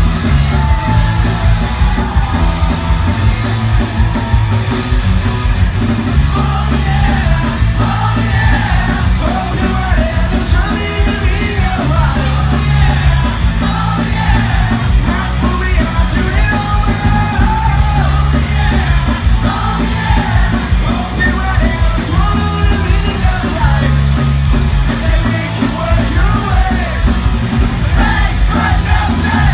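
Live punk rock band playing loud: distorted electric guitars, bass guitar and drums, with a singer's voice over them, heard from within the audience.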